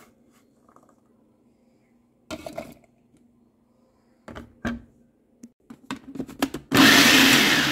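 Chopped green onions scraped off a wooden board and dropping into a plastic food-chopper bowl in two short bursts, then a few clicks. Near the end the electric chopper runs loudly for about a second and a half, mincing the onions, coriander and chillies.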